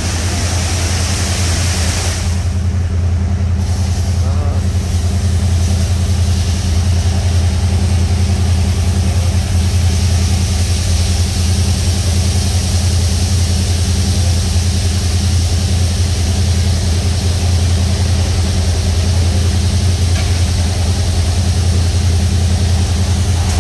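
Touchless automatic car wash at work on a side-by-side UTV: water spray hissing over the vehicle over a steady low machine hum.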